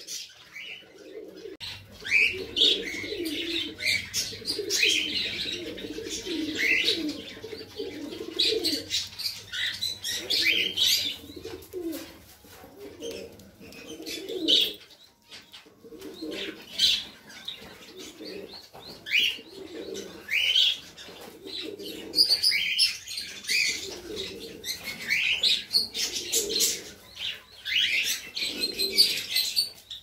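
Fantail pigeons cooing over and over in low, rolling phrases, with high chirps from other birds mixed in and now and then a flutter of wings.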